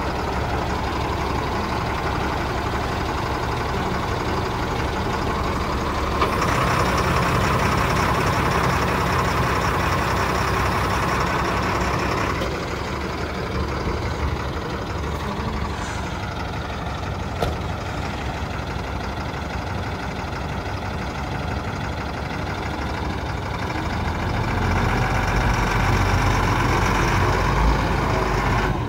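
1993 Chevrolet Kodiak dump truck's engine idling steadily, with a low hum that grows louder for several seconds about a quarter of the way in and again near the end.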